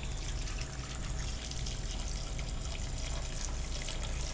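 White vinegar pouring in a thin steady stream into a bowl of chopped cooked beef foot, trickling onto the pieces.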